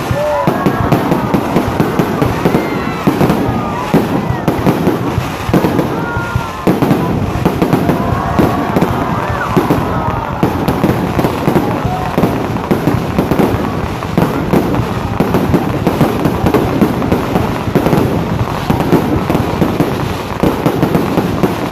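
Fireworks going off without a break: a dense, rapid stream of cracks and pops, loud throughout.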